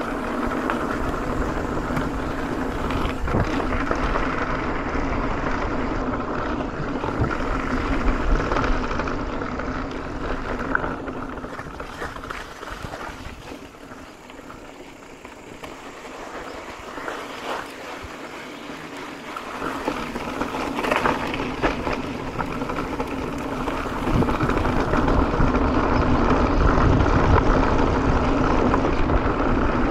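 Mountain bike riding downhill: wind rushing over a handlebar-mounted action camera's microphone, with tyre noise and knocks and rattles from bumps. It dies down for a few seconds in the middle as the bike slows on dirt, then grows loud again near the end.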